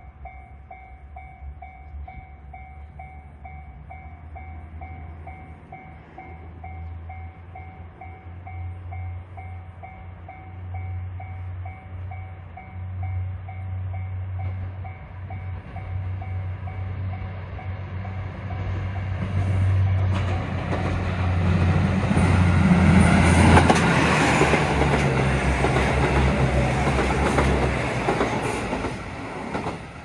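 A Japanese level-crossing warning bell rings in a steady repeating pattern at its reduced volume, turned down once the barriers are fully lowered. Under it, a KiHa 85-series diesel limited express approaches with a growing engine rumble. The train passes loudly over the crossing in the last third and drops away near the end.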